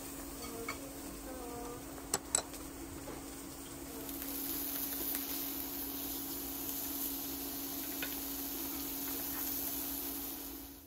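Two sharp clinks over a steady low hum, then, about four seconds in, a slice of beef chuck flap sizzling in a frying pan as it sears, a steady bright hiss.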